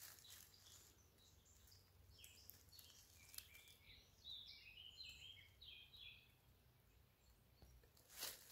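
Near-silent woodland with a faint songbird singing a quick run of short, high chirping notes in the middle. A brief rustle comes near the end.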